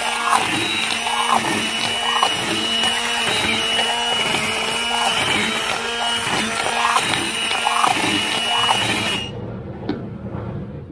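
Sonifer single-speed hand blender's motor running while its blade purées coarse rice porridge, the sound wavering in a regular pulse about twice a second as the blender is worked through the porridge. The motor stops about nine seconds in.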